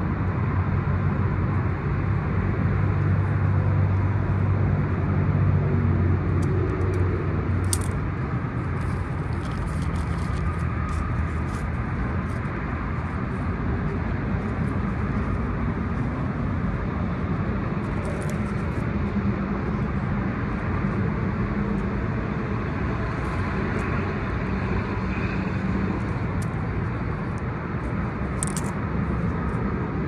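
Steady road traffic rumble, with a vehicle engine humming through the first several seconds. A few faint, brief clicks sound over it.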